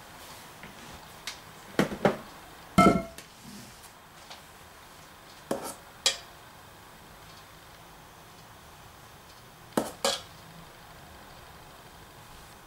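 A metal spoon clinking and knocking against a pot and a glass bowl while sour-cream cream is ladled over cake, about seven sharp knocks, mostly in pairs. One knock, about three seconds in, rings briefly with a clear tone.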